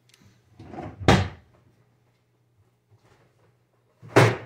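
Two loud knocks about three seconds apart, like a kitchen cupboard door banging shut; the first comes after a brief rustle.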